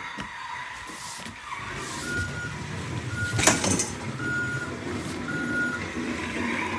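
Battery-powered Road Rippers Triceratops toy monster truck driving in reverse. Its motor runs while its sound unit gives four steady reversing beeps, about one a second, with a sharp knock midway.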